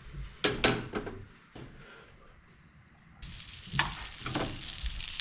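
Two sharp clanks of cookware, then a sudden start of frying-pan sizzle about three seconds in, with a few more knocks of utensils on the pan over it.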